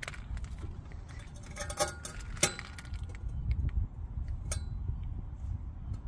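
Light clicks and a brief metallic clink about two seconds in, with a sharper click just after, as someone shifts and sits down on a seat, over a low wind rumble on the microphone.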